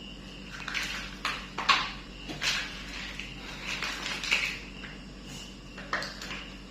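Small hard plastic toy pieces clicking and clattering, handled and fitted together in a scatter of irregular knocks.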